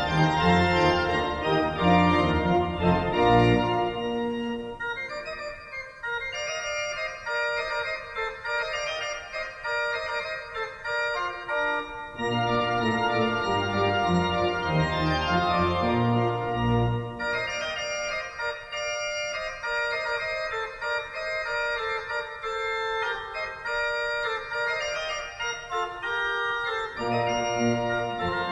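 Pipe organ playing a slow piece of held chords, with deep pedal bass notes in some passages and only the higher voices in others.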